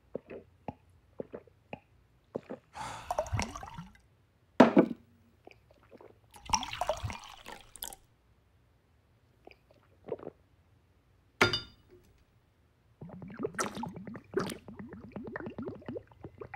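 A man drinking whisky, with wet gulps and swallows from a glass and irregular clicks and sloshes of liquid. There are a couple of longer rushing sounds and one sharp knock about four and a half seconds in. Near the end comes a fast run of repeated gulps as he swigs straight from the bottle.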